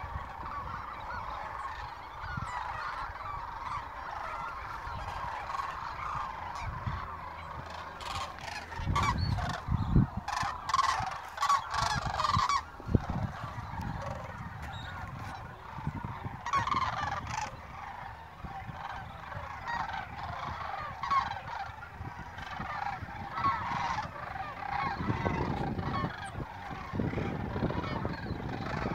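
Flocks of large waterbirds calling in flight, a dense, continuous honking chorus. A low rumble on the microphone comes in about nine seconds in and again near the end.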